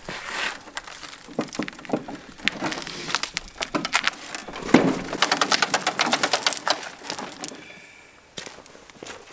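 Hand work with tools and mower parts: scattered knocks and clicks, with a fast, even run of clicks from about five to seven seconds in.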